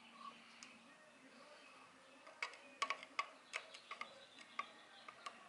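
Light metallic clicks and ticks from a hex key working at the rotary hook of a Prodigy longarm quilting machine as the hook is loosened for removal. The clicks are scattered and faint, about a dozen, mostly in the second half.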